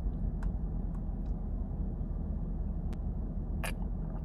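Steady low rumble of a car's cabin while driving: road and engine noise, with a few faint scattered ticks.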